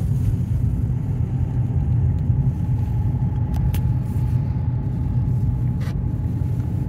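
Lada Granta driving at a steady speed, heard inside the cabin: a steady low rumble of road and tyre noise from its non-studded winter tyres, with a faint steady whine that the owner puts down to the gearbox. A few faint clicks.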